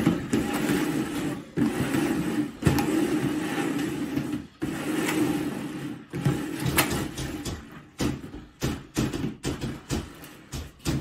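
Hands drumming fast on upturned plastic mixing bowls in a drumroll, breaking about eight seconds in into separate taps, about three or four a second.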